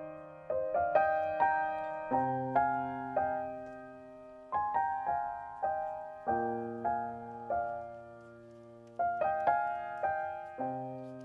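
Background piano music: single notes and chords struck about two a second, each left to ring and fade.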